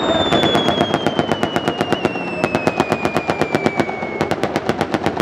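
A 12.7 mm M2 heavy machine gun fires blanks from the door of a UH-60JA Black Hawk helicopter, in three rapid bursts of about eight shots a second. Under the shots, the helicopter's turbine whine falls steadily in pitch.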